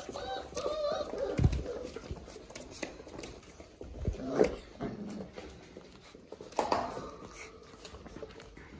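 Month-old Weimaraner puppies whining and yipping as they play, with short high calls scattered through. A couple of dull bumps come from the puppies jostling close to the microphone.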